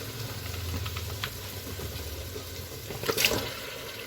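Marinated chicken going into a hot kadai of fried onion-tomato masala: wet frying and sizzling, with a loud metal scrape or clatter of utensil against the pan about three seconds in.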